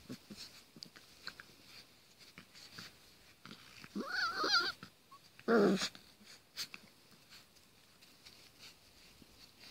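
Puppies play-fighting: one gives a short, wavering, high-pitched growl about four seconds in, and a louder growl follows a second later, with soft scuffles in the grass between.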